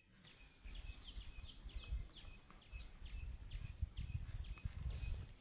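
Crimson sunbird calling: a quick series of short, sharp chirps, each falling in pitch, about three a second.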